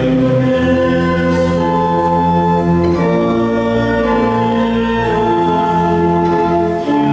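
Organ playing slow, held chords that change every second or two over a steady bass line.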